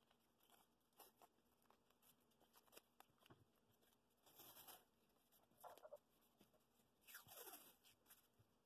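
Faint rasps of blue painter's tape being pulled off the roll and wrapped around two stacked wooden boards, three short bursts in the second half, with a few light ticks of the boards being handled before them.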